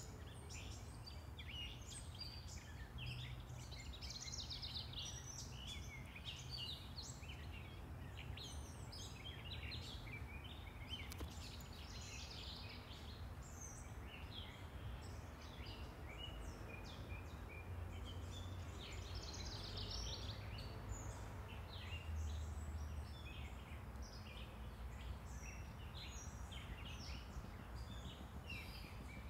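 Birds chirping and singing in many short, overlapping calls, thinning out for a few seconds around the middle, over a steady low rumble of distant traffic.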